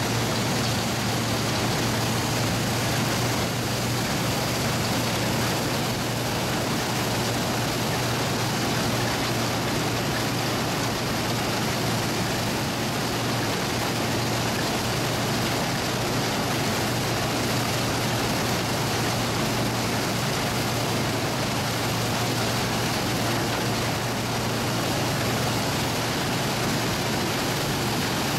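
Allis-Chalmers All-Crop self-propelled combine running while it cuts and threshes grain: a steady low engine hum under a broad, even rush of machinery noise, loud and unchanging.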